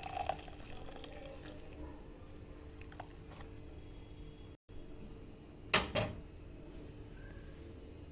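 Two sharp knocks close together about six seconds in, with a few light clicks before, over a faint steady room hum: kitchen utensils knocking as the ginger tea is strained. The sound cuts out for an instant midway.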